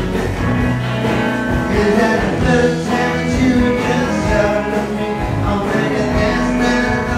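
Live electric band playing, with electric guitars and drums under a male lead vocal.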